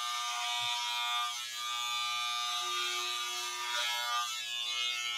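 Electric beard trimmer buzzing steadily as it is run through head hair for a first cut.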